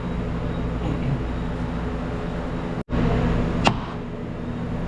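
A steady low hum, cut by a brief dropout about three seconds in, then one sharp knock shortly after.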